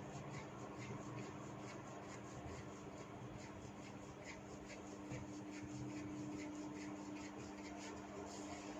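Fingers rubbing and tugging hair during a head massage, making a run of small crackling ticks, about three or four a second, over a soft rubbing noise.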